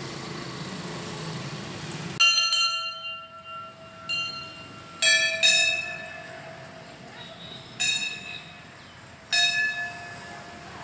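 Temple bell struck six times at uneven intervals, each strike ringing on and fading. Before the first strike, a steady low background noise cuts off abruptly about two seconds in.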